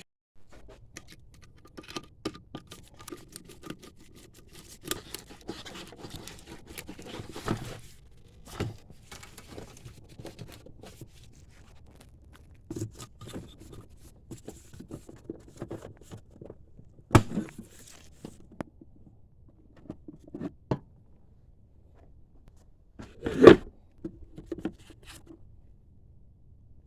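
Hands handling parts and packaging: scattered rustling, tearing and light clicks, with a sharp knock about two thirds of the way in and a louder knock near the end.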